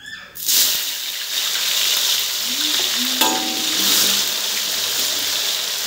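Salted fish going into hot oil in an aluminium wok: the oil starts to sizzle loudly about half a second in and keeps frying steadily. A metal spatula knocks once against the wok about three seconds in.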